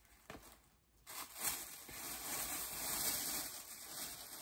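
Crinkling and rustling of a plastic shopping bag being handled. It starts about a second in and carries on steadily.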